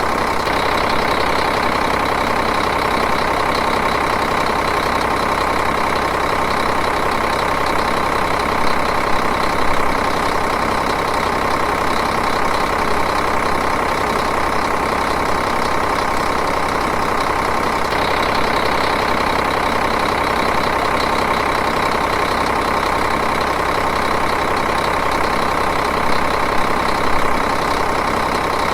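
Diesel engine idling steadily and evenly, with a brief flutter of slightly louder knocks about nine seconds in and again near the end.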